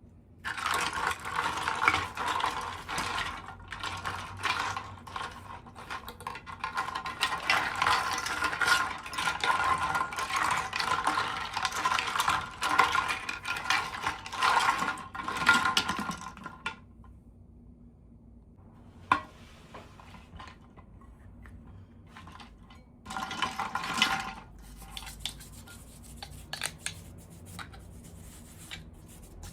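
Hands handling plastic packaging and small plastic toy parts: dense rustling and clicking for about sixteen seconds, then a few short bursts of the same handling sounds.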